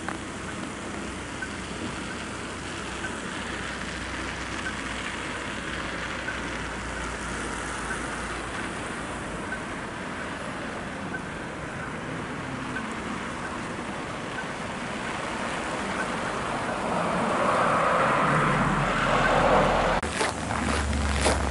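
A car drives past on a snow-covered street, its engine and tyres growing louder over the last few seconds, above a steady low background hum.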